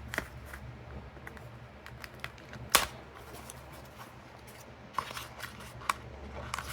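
Small cardboard product box being worked open by hand: scattered clicks, scrapes and paper rustles, with one sharp snap about three seconds in and a few smaller ones later. A steady low hum runs underneath.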